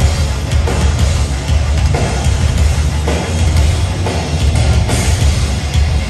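A heavy band playing live at full volume: distorted electric guitars and bass over a pounding drum kit, with a heavy low end, heard through a phone's microphone in the crowd.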